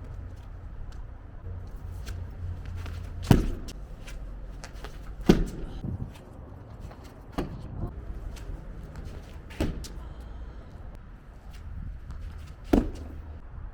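Five heavy thuds, roughly two seconds apart, the loudest about three and five seconds in, over a steady low hum.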